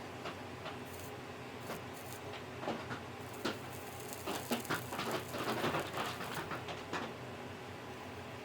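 Scattered small clicks and light scrapes from hand tools working on a small circuit board, busiest in the middle seconds, over a faint steady hum.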